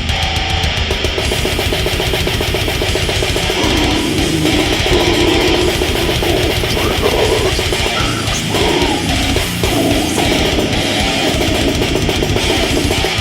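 Brutal death metal: heavily distorted guitars over very fast, dense drumming, loud and unbroken throughout.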